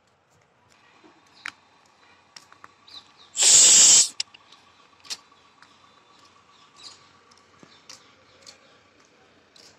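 A single loud, sharp hiss lasting under a second, about three and a half seconds in. Around it there are faint scattered clicks and a faint steady high tone.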